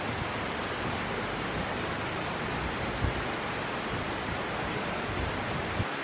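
A steady, even rushing noise with no clear pitch, with a soft low bump about three seconds in and another near the end.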